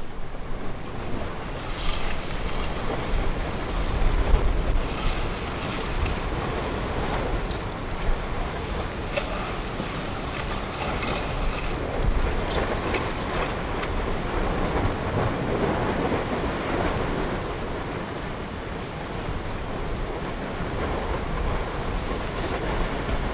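Wind blowing on the microphone over the steady, surf-like rush of an erupting lava fountain, with scattered faint crackles.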